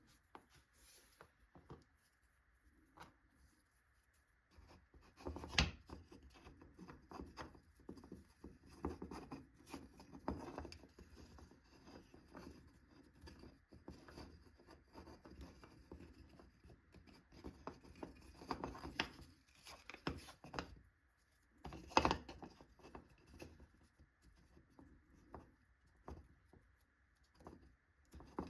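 Hand work on a wooden block: irregular light scraping and rubbing broken by scattered knocks, the sharpest about five and a half seconds in and again around twenty-two seconds in.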